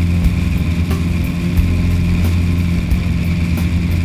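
Single-engine Cessna's piston engine and propeller running at steady high power in the climb just after takeoff, a loud, even drone, with wind rushing over the outside microphone.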